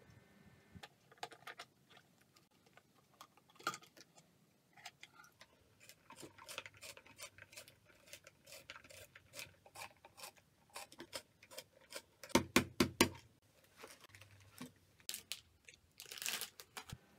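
Pencil being sharpened in a small plastic shinkansen-shaped pencil sharpener on a plastic bottle: irregular crunchy scraping and clicking as the blade shaves the wood. It includes a few louder knocks about twelve seconds in and a crinkle of plastic packaging near the end.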